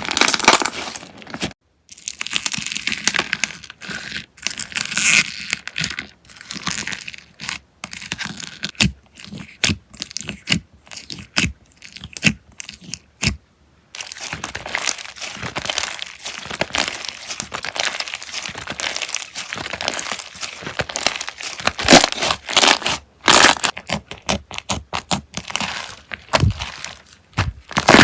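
Slime being squeezed and poked by hand: a close, dense run of sticky pops, crackles and crunches, broken by a couple of brief pauses.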